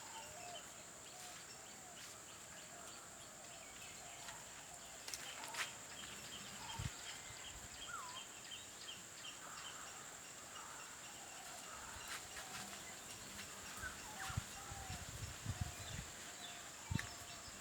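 Faint outdoor ambience with scattered short bird calls over a steady high hiss. A run of soft ticks comes in the first few seconds, and there are a few low soft bumps in the second half.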